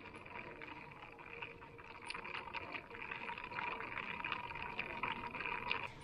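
Faint fizzing, bubbling crackle of many tiny pops from inside the brake booster vacuum hose of a 2000 Subaru Impreza RS, its intake filled with smoke for a vacuum-leak smoke test. It grows a little louder about halfway through.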